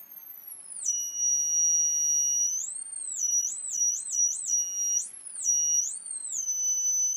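High-pitched electronic whine from an oscillating ferrite-core transformer circuit, sounding at the circuit's oscillation frequency. The pitch falls in the first second to a steady tone, wavers up and down several times in the middle, and climbs sharply as it ends.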